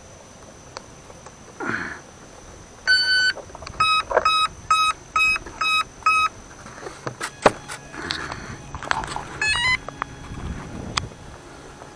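E-flite Cessna 150 electric RC plane's speed controller sounding its start-up tones through the motor as the flight battery is connected. One long beep, then six short evenly spaced beeps, and a quick rising run of tones near the end, with a few handling clicks and rustles between.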